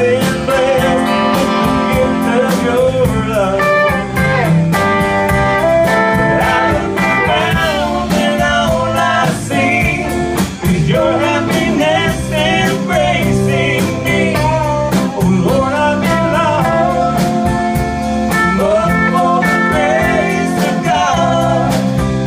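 Live rock band playing a song: two electric guitars, electric bass and drum kit, with a steady beat.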